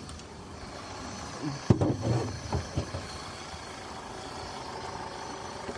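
Yamaha F150 four-stroke outboard running at a rough, stumbling idle, which the owner suspects comes from an air leak at the intake. A sharp knock comes just before two seconds in, followed by a few short irregular sounds.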